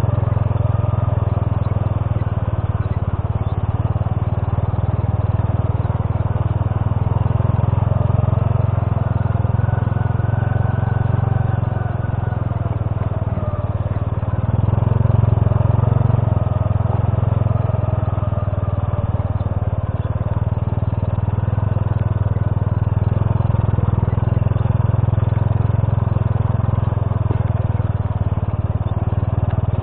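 Honda C70's small single-cylinder four-stroke engine running steadily under way on a rough stone track, its note rising and falling gently with the throttle. It dips briefly about halfway through, then picks up again.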